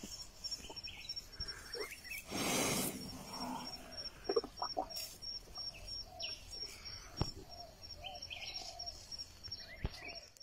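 Outdoor ambience with a high, fast, evenly repeated chirping call from an animal running through most of it. A short loud rush of air comes about two and a half seconds in, and a few soft knocks are scattered through it.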